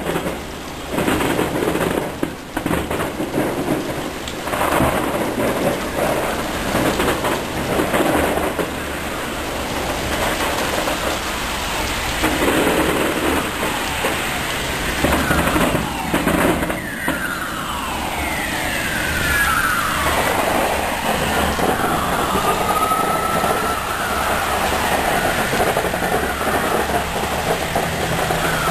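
Violent summer storm: rain and gusting wind with repeated deep booms. About two-thirds of the way through, whistling tones slide down in pitch, followed by one rising whistle.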